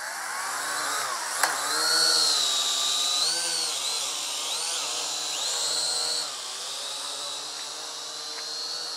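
Small quadcopter's electric motors and propellers whining as it lifts off and flies, the pitch rising and falling with the throttle. There is a sharp click about a second and a half in, and the sound is a little quieter after about six seconds.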